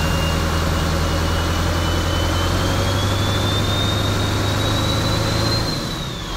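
Ford truck's 7.3 V8 engine idling steadily, with a thin high whine over it that slowly rises in pitch and then falls away near the end, as the engine note dips a little.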